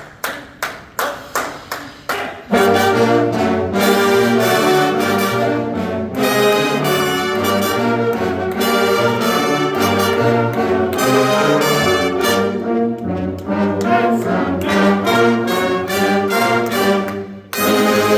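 High school marching band brass section playing a warm-up, entering about two and a half seconds in after a run of sharp, evenly spaced count-off clicks. The playing cuts off briefly near the end, then starts again.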